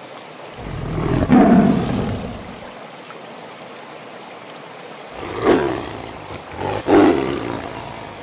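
A tiger roaring: one long call about a second in, then two shorter ones near the end, over a steady background hiss.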